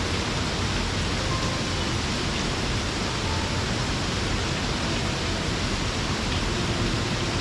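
Waterfall: the steady, even rush of falling water crashing onto rock and pool.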